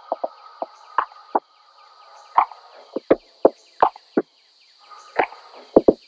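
About a dozen sharp knocks and clicks at irregular spacing, with short pauses between groups, over a faint steady high hiss.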